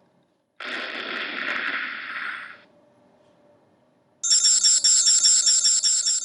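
A two-second burst of hiss, then, after a short pause, a loud, high-pitched ringing trill pulsing about nine times a second.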